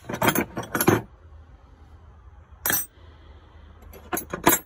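Metal sockets clinking against each other as they are picked through, looking for a 10 mm. A quick run of clinks at the start, a single clink in the middle and another short run near the end.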